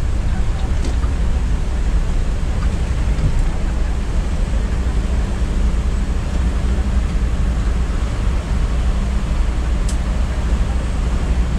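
Steady low rumble of a Volvo B9R coach's diesel engine and road noise, heard from inside the driver's cabin.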